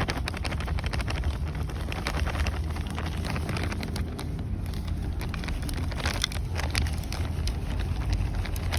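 Potting soil being scooped and poured into a plant pot: a dense run of small crackling, rustling clicks over a steady low hum.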